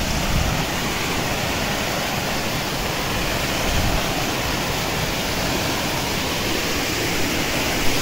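Small waterfall: a steady, even rush of falling and splashing water.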